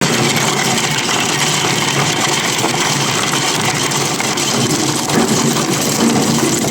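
Tube ice machine running: a loud, steady mechanical drone with an even hiss over it.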